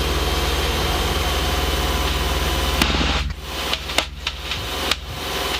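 Cessna 172 Skyhawk's piston engine and propeller droning steadily, heard inside the cabin. About three seconds in the low drone drops and the sound gets quieter, with a few short clicks.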